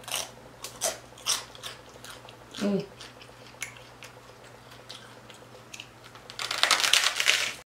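Crunching bites and chewing of a crispy pork rind (chicharron) tostada close to the microphone: several sharp crunches in the first second or so, then a louder burst of crunching near the end that cuts off suddenly.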